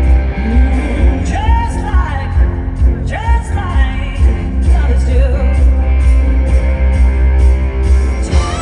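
Live rock band with a woman singing lead over electric guitar, drums and heavy bass. The lead vocal line rises and falls in several sung phrases.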